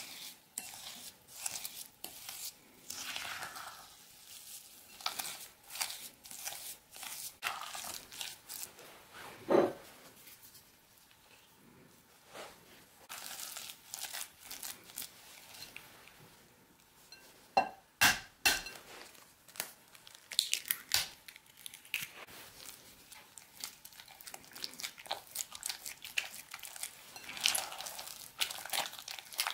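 A metal spoon and then a silicone spatula stirring and scraping gritty creamed butter and sugar in a glass bowl. The stirring makes an irregular crunching, scraping rustle, with a few sharp knocks about ten seconds in and around eighteen seconds.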